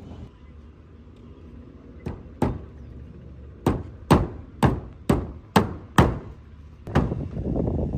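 Hammer blows: two strikes about two seconds in, then a steady run of six at about two a second, and one more near the end.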